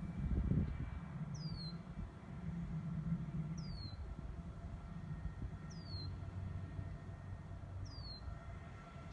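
A bird calling a short, downward-sliding whistle about every two seconds, four times, over a steady low rumble with faint constant tones beneath. A brief low rumble swells about half a second in.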